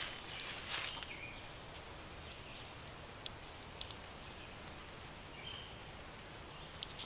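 Quiet forest ambience with faint, short bird chirps now and then. A brief rustle of leaves and handling noise comes in the first second, and a few sharp clicks follow later.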